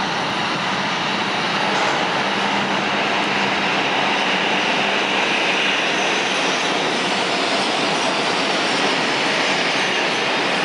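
R142 subway train running past on the express track at speed: a steady loud rumble of steel wheels on rail that grows a little louder about two seconds in as the train arrives, with a faint high whine near the middle.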